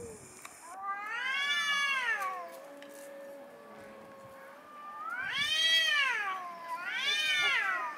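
Cats caterwauling as they square off to fight: three long yowls that rise and fall in pitch, about a second in, around five seconds and around seven seconds, with a lower drawn-out moan between them.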